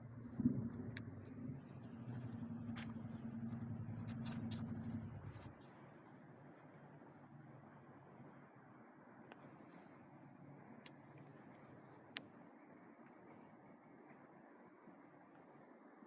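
Steady high-pitched chirring of crickets in the background. A low hum lies under it for the first five seconds or so and then stops, and a couple of faint clicks come later.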